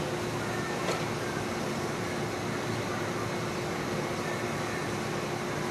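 Automatic train wash running as an electric train creeps through it: a steady rushing noise with a constant hum. A single short click about a second in.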